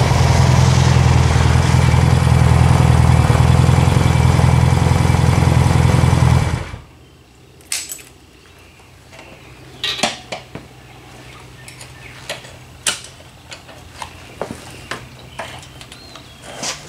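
1996 Honda Rebel 250's small parallel-twin engine running steadily, then cutting off suddenly about seven seconds in. After that come scattered sharp clicks and light knocks from the bike being handled.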